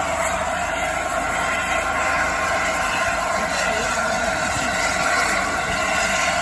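Steady hiss of escaping steam from the A4-class steam locomotive 60007 Sir Nigel Gresley, with no exhaust beats, as from the engine standing in steam.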